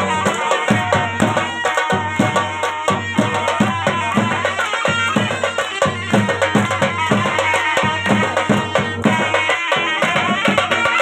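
Traditional Gilgit-Baltistan harip dance music: drums beating a fast, steady rhythm under a sustained melody.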